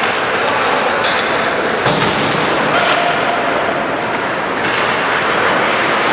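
Ice hockey play in an indoor rink: a steady hiss of skates on the ice with a few sharp knocks of sticks and puck, the clearest about two seconds in.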